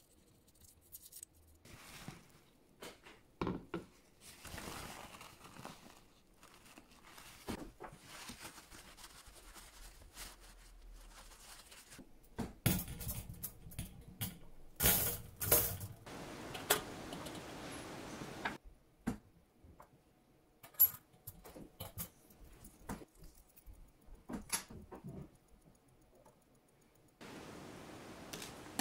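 Small metal watch parts and a wire cleaning basket being handled: scattered light clinks and taps, the sharpest a little past the middle, with stretches of soft brushing noise between them.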